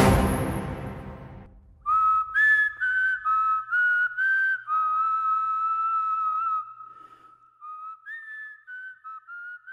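A loud musical hit fades out over the first second and a half. Then a whistled tune of short separate notes, one clear pitch at a time, plays a phrase that comes back more quietly near the end.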